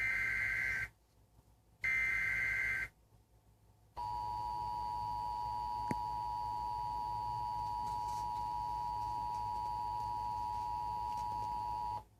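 Emergency Alert System broadcast signal: two SAME header data bursts, each about a second long, screeching digital tones a second apart. After a short gap comes the EAS two-tone attention signal (853 and 960 Hz sounded together), held steady for about eight seconds and then cut off sharply, announcing a weather alert.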